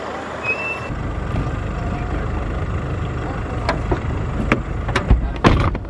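Car on the move heard from inside the cabin: a steady low rumble, with a few sharp knocks in the second half.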